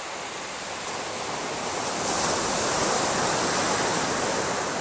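Ocean surf breaking on a sandy beach: a steady wash of noise that swells about two seconds in.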